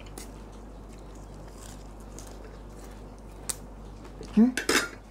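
Quiet eating at a table: a spoon ticks against a plate about three and a half seconds in, then near the end a brief voice sound and a sharp clatter of a spoon on dishes.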